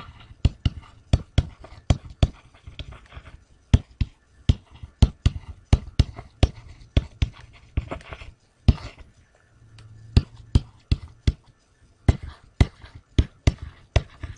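Stylus tapping and scratching on a tablet screen while numbers are hand-written: irregular sharp taps, a few a second, with soft scratching between them and a brief lull partway through.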